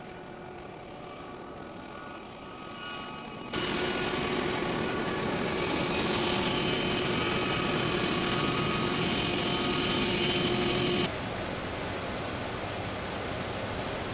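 Jet engines of a taxiing Boeing 757 (Air Force Two) running with a steady rush and whine. The sound jumps abruptly louder about a quarter of the way in and drops back abruptly about three quarters of the way through.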